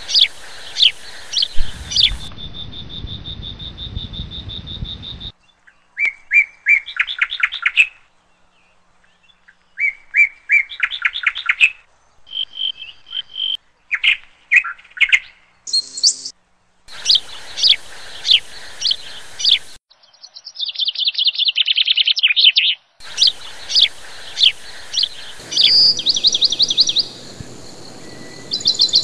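Birds chirping and calling, with several different songs of quick repeated chirps, in stretches that start and stop abruptly. A steady high tone sits over a low rumble for a few seconds early in the passage.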